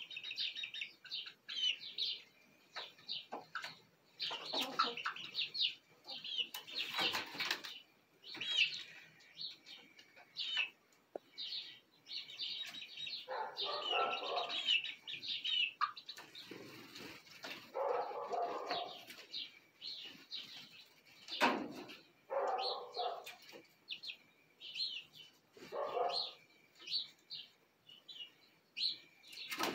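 Young chickens settling on a roost, peeping and chirping almost without pause, with lower soft calls now and then and a few wing flaps and thumps as birds shift on the perch.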